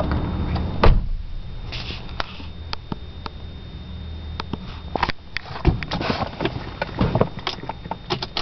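1997 BMW 328i's inline-six engine idling roughly on a cold start. There is a loud thump about a second in, then scattered irregular clicks and knocks over the low running.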